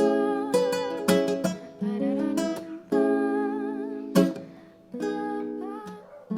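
Live acoustic guitar strumming and plucking chords, in a break between sung lines of a song. A thinner melody line wavers in pitch above the chords.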